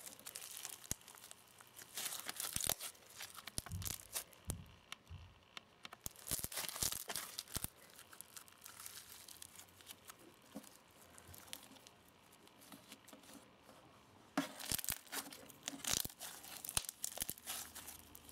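Clear foam slime packed with foam beads, squeezed, poked and kneaded by hand: irregular crunchy crackling and popping as the beads press together, thinning out in the middle and picking up again near the end.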